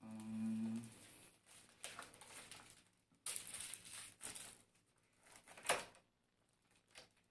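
Handling noise from unpacking a folding e-bike: plastic wrapping rustling and the bike's parts knocking and clicking, with a sharp click a little before six seconds in. A short hum from a man's voice opens it.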